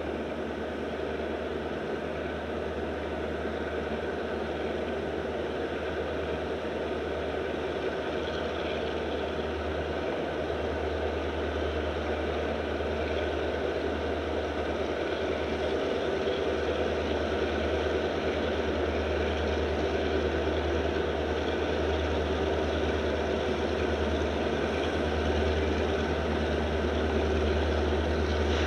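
Diesel-electric freight locomotives working under power as they approach, a steady low engine drone that grows slowly louder.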